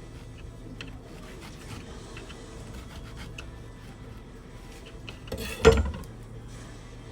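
Small handling noises, light rubbing and clicks, with one louder scrape and knock about five and a half seconds in, over faint background music.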